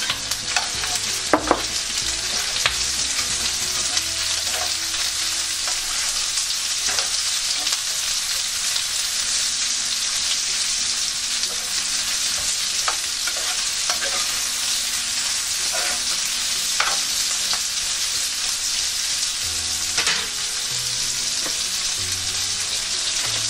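Diced pork, sausage, onion, garlic and carrots sizzling steadily in hot oil in a pan while being stirred, with short scrapes and clicks of the stirring now and then.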